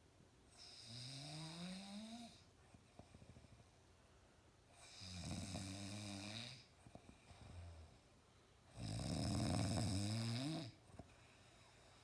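A man snoring loud: three long snores about four seconds apart, the first rising in pitch as it goes, the last the loudest.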